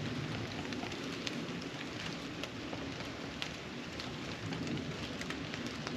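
Steady wash of rain with scattered drops ticking close by, over the distant noise of cars on a road across the river.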